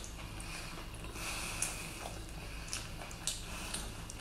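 Wet mouth and food noises of eating a whole braised octopus: a soft drawn-out slurp at the head, then a few faint wet squishes and clicks as the head is pulled apart.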